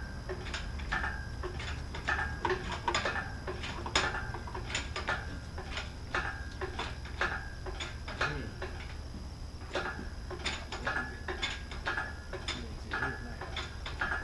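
Metal tools and engine parts clinking and clattering, with irregular sharp clicks and short metallic rings, during work on the engine's bottom end.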